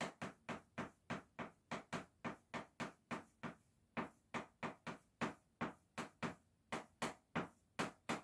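Chalk writing on a chalkboard: a run of short, sharp taps, about three or four a second, one for each stroke of the letters, with a brief pause a little past the middle.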